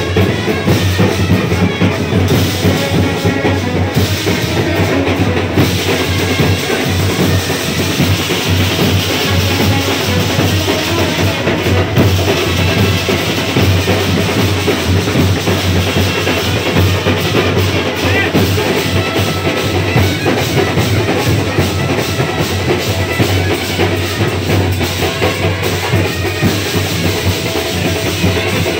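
Continuous music with loud, busy drumming: bass drum and snare-type strokes beating without a break.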